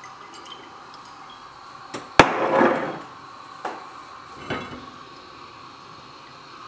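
A glass oil bottle set down hard on the kitchen counter: one sharp clunk with a short ring about two seconds in, followed by two lighter knocks of kitchenware.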